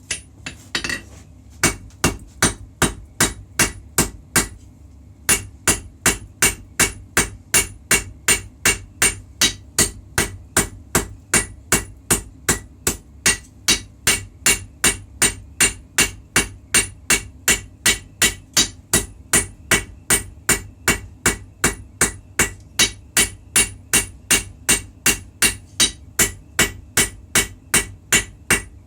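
Hammer forging a puukko knife blade on an anvil: sharp, ringing metal-on-metal blows, a few uneven ones at first, then after a short pause an even run of about three strikes a second.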